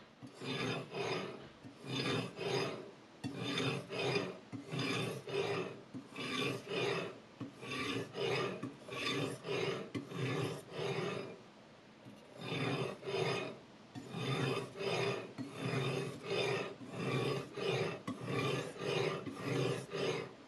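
Whetstone on a guided-rod sharpening system grinding the edge of a Chinese chef's knife with a VG10 steel blade: repeated scraping strokes, about two a second, with a brief pause about halfway through.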